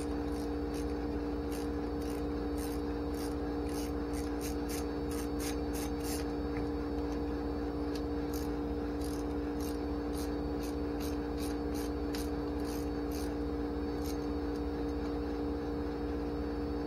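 A steady mechanical hum with two level tones runs throughout. Over it come faint, irregular clicks and light metal ticks from hand tools on the bolts of a Holley 4150 carburetor's primary fuel bowl as they are loosened.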